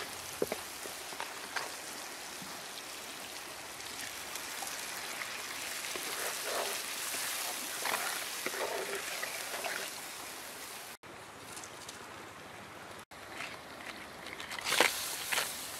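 Chilies and garlic sizzling in hot oil in a wok, with a spatula scraping and stirring, then a curry sauce bubbling. Near the end crabs are tipped into the wok with a loud clatter and splash.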